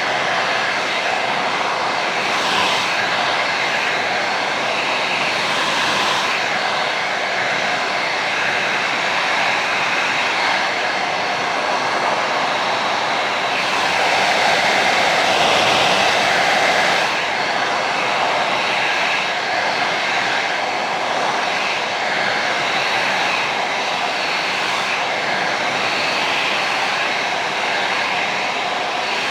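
Handheld hair dryer running, a steady rush of blown air with a faint whine from its motor and fan. It grows louder for a few seconds about halfway through.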